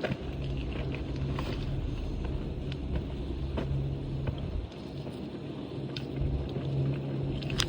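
Strong wind buffeting the microphone as a steady low rumble, with scattered faint clicks over it.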